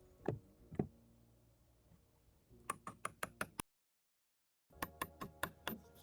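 Sharp knocks of a hand tool striking wood: two heavy blows about half a second apart, then two quick runs of about six lighter strikes each, split by a second of dead silence.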